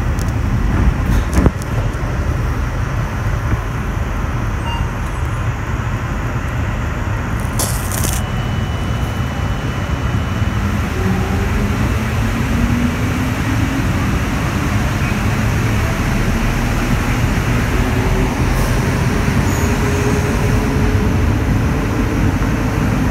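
CAF NS-07 metro train running, heard from inside the driver's cab: a steady low rumble, with the traction motor whine climbing steadily in pitch from about halfway as the train picks up speed. A couple of sharp clicks, one near the start and one about a third of the way in followed by a short high beep.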